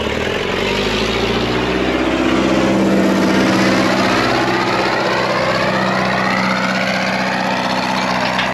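Classic tractor engine revving up, rising in pitch over the first few seconds, then running steadily before cutting off suddenly.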